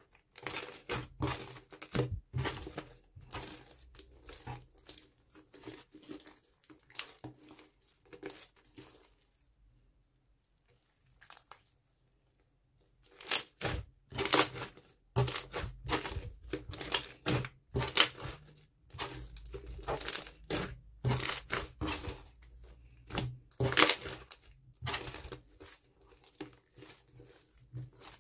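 Thick, beaded blue slime being kneaded, stretched and pressed by hand: a dense run of sticky clicks and pops. It stops for a few seconds near the middle, then starts again at about the same loudness.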